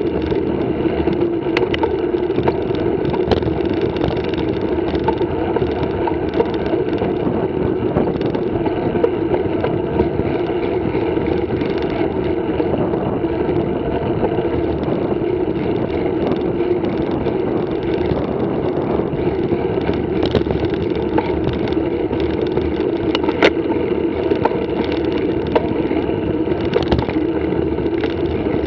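Mountain bike rolling along a concrete track: the knobby tyres make a steady rolling hum, with a few sharp knocks from bumps in the surface.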